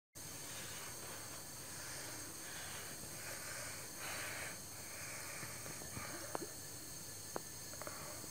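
Steady background hiss with a few soft, short rustles, then four or five light, sharp clicks spaced through the second half.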